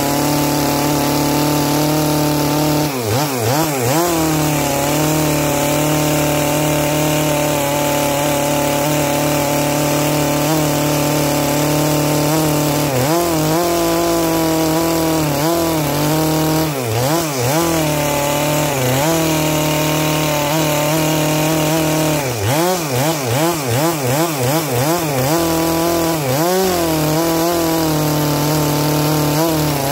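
Stihl MS 462 single-cylinder two-stroke chainsaw with a 25-inch bar running at full throttle, sawing lengthwise down through a bone-dry Manchurian walnut log. The engine note wavers and sags in stretches as the chain loads up in the cut, most of all in the later part.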